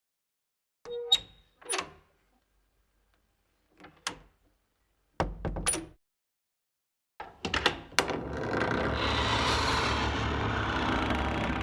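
A run of door sounds: a latch clicking, a door closing with a thud, and a handle rattling before a shut. About two-thirds of the way through, a steady rushing noise begins and carries on.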